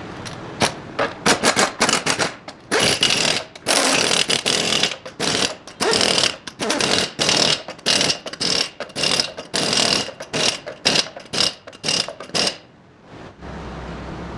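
Impact wrench hammering in repeated short bursts of uneven length, then stopping near the end.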